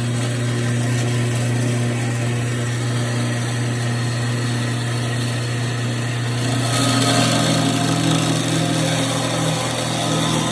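Power saw running steadily with a strong low hum, cutting into 6x6 steel square tubing; about six and a half seconds in the sound turns harsher and a little louder as the blade bites deeper into the steel.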